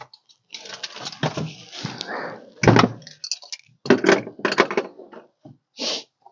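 Old carpet and padding being pulled up from the steel cab floor of a 1976 Ford pickup: irregular scraping, rustling and tearing, with a heavy thump about two and a half seconds in.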